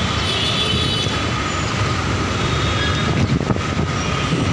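Busy road traffic at a junction: motor scooters and other vehicles running, a steady dense rumble with a faint steady high tone through it.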